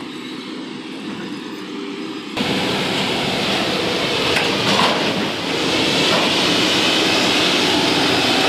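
Track relaying train machine moving along the rails: first a fainter low rumble while it is distant, then, after a sudden jump about two seconds in, loud, steady running noise of the machine close by.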